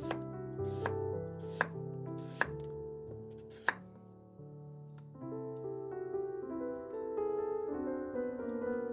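A chef's knife slicing through a raw sweet potato and knocking on a wooden cutting board: five sharp chops, roughly one a second, that stop about four seconds in. Soft piano music plays underneath throughout.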